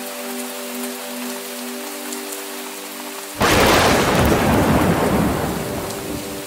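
Steady heavy rain with soft, sustained background music notes; about three and a half seconds in, a sudden loud thunderclap breaks in and rumbles away over about two seconds.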